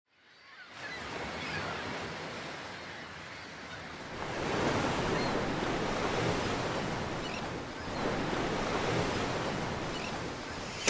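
Ocean surf: a steady rush of waves that fades in over the first second and swells twice, about four seconds in and again about eight seconds in.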